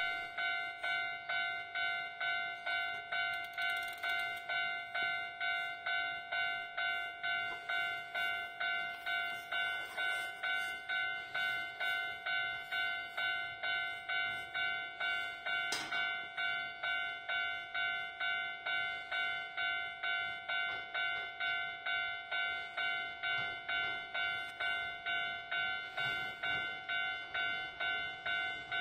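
Japanese level-crossing warning bell ringing: a single-pitched electronic ding repeating evenly and rapidly, the signal that the barrier is down and a train is approaching.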